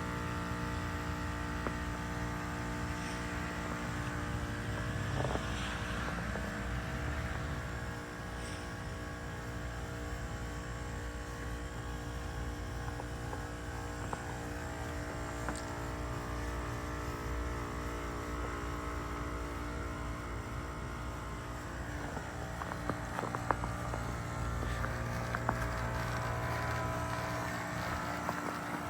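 2025 Carrier Comfort A2L heat pump outdoor unit running through a defrost cycle: a steady compressor hum with several fixed tones over a rushing noise, with a few sharp clicks in the last few seconds.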